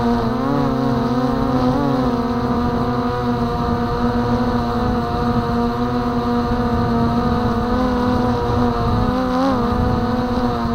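Hovering camera drone's motors and propellers humming in a steady, layered whine, with the pitch wavering briefly about two seconds in and dipping near the end as the motors adjust.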